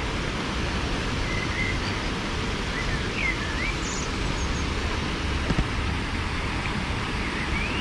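Water spilling over a low wooden weir in a small canal, a steady rushing, with a few short bird chirps over it.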